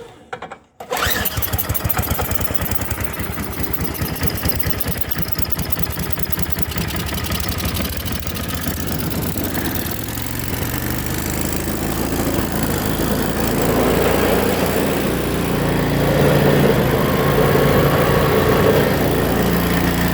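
Snowblower engine catching about a second in after being choked and primed, then running steadily, getting louder with a change of note about two-thirds of the way through. It is being run to test the newly fitted auger belt.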